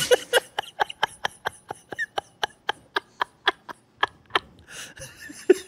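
Hard, breathless laughter: a run of quick wheezing gasps, about four a second, trailing off into a few breaths near the end.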